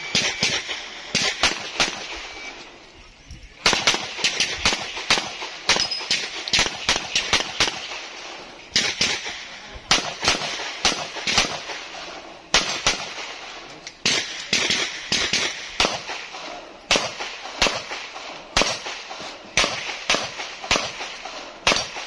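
Pistol fired in quick strings of shots during a practical shooting stage, with short pauses between strings and a quieter lull of about a second and a half two seconds in.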